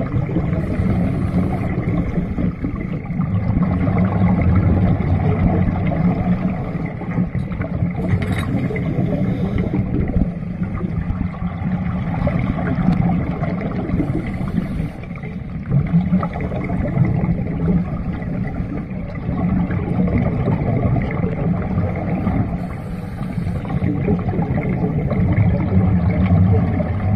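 Underwater sound around scuba divers on a pool bottom: a steady low rumble, with now and then a short gurgling hiss of exhaled bubbles from a regulator.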